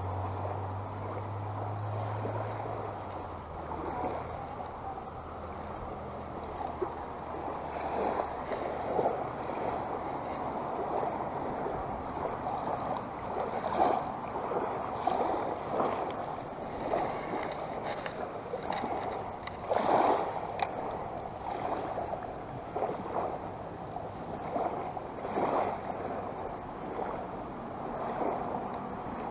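Shoreline ambience: a steady wash of wind and small waves at the water's edge, with scattered brief louder rustles. A low hum fades out in the first few seconds.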